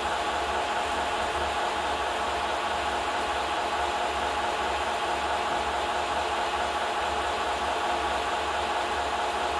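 Steady mechanical whir of a running movie film projector, its motor and fan giving an even hiss with a faint steady tone over a low pulsing hum.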